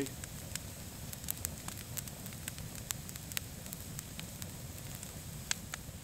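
Open wood fire crackling, with irregular sharp pops.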